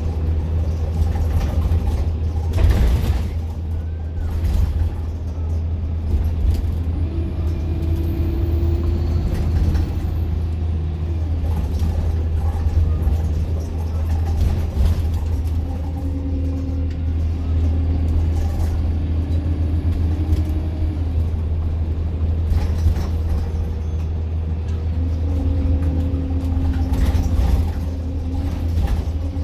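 Riding inside a city bus: its engine and the road make a steady low drone, with held tones from the drivetrain that rise and fall as the bus pulls away and slows. A few sudden short sounds cut through, the loudest about three seconds in.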